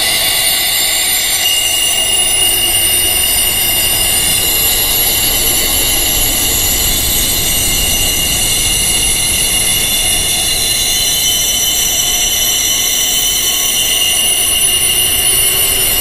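Wind chimes ringing: many high metallic tones held and overlapping at an even level, with no single strike standing out.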